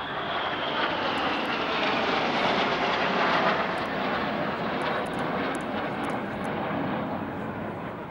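A formation of RAF Red Arrows BAE Hawk T1 jets flying past. The jet noise builds to a peak about halfway through and then fades, with a high whine falling in pitch near the start.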